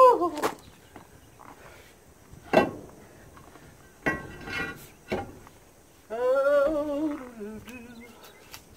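A heavy brake drum knocking against a truck trailer's hub and wheel studs as it is fitted: a handful of sharp knocks a second or more apart. A voice hums a tune at the start and again for about a second and a half past the middle.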